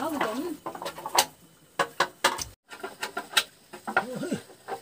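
A few spoken words, then a series of sharp clicks and knocks, and a short pitched call that rises and falls near the end.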